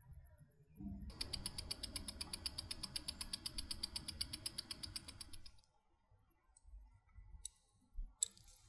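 Omega calibre 1120 automatic watch movement ticking, picked up by a Witschi timegrapher's microphone: a fast, even tick at 28,800 beats an hour, eight ticks a second, from about a second in until it cuts off about five and a half seconds in. The freshly serviced movement is running well, keeping time to within +0.7 to +2.8 seconds a day, with amplitude and beat error normal. Near the end come a couple of faint clicks.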